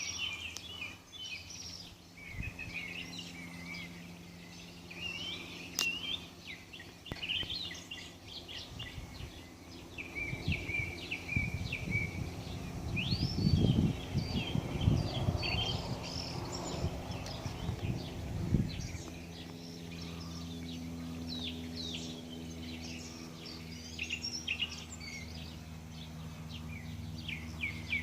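Small songbirds chirping and trilling over and over in high, quick notes, with a low rumbling in the middle and a faint steady low hum underneath.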